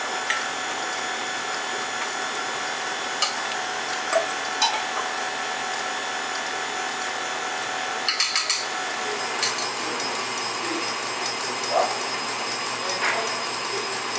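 KitchenAid Artisan stand mixer running steadily with its wire whisk beating an egg-yolk mixture, a constant motor whine. A few sharp metal clinks are heard, a quick cluster about eight seconds in, as a steel bowl knocks against the mixing bowl.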